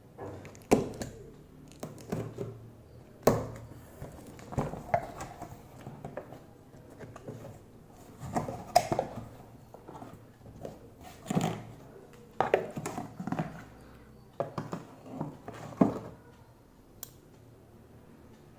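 Cardboard box being cut open with a knife and handled: irregular scrapes, rustles and about a dozen knocks and thuds spread through.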